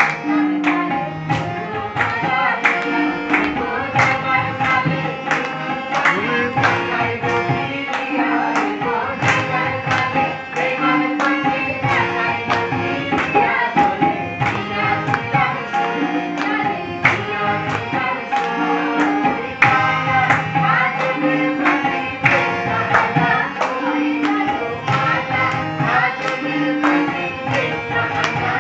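Live tabla and harmonium music: the tabla drums beat a steady, quick dance rhythm under the harmonium's held chords, with voices singing along.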